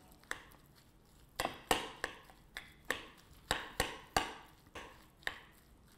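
Metal spoon stirring a soft crab filling in a ceramic bowl, clicking against the bowl about a dozen times in an irregular series.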